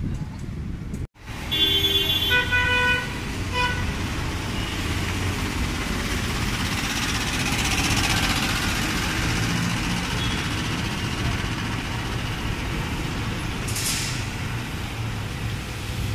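City street traffic: a vehicle horn toots several short times in the first few seconds, then a steady mix of engine and tyre noise from passing vehicles, swelling as one goes by about halfway.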